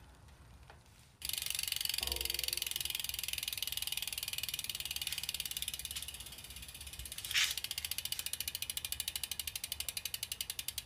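Bicycle freehub pawls ticking rapidly and evenly as the drivetrain spins freely, starting about a second in, with one sharper click partway through.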